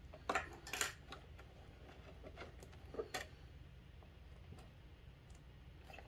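Light clicks and taps of wires and a ribbon cable being handled against the circuit boards and plastic walls of an electronics enclosure, with a couple of sharper clicks within the first second and another about three seconds in.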